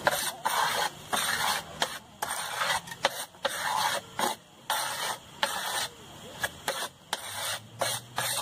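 A trowel scraping and shaping a mound of packed earth that serves as the mould for a cement pot: a quick, irregular run of short scraping strokes, fewer and shorter in the last few seconds.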